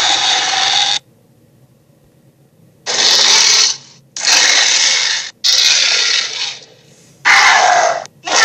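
Harsh, raspy monster-roar sound effects in the style of a Sharptooth dinosaur. One roar cuts off about a second in. After a short pause comes a run of five shorter roars of about a second each, the last starting near the end.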